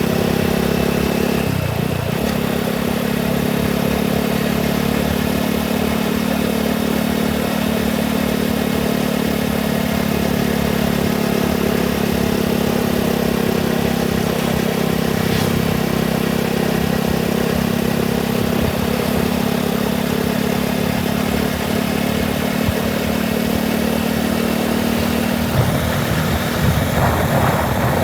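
Motorcycle engine running steadily while riding, its note dipping briefly about two seconds in and turning rougher and louder near the end.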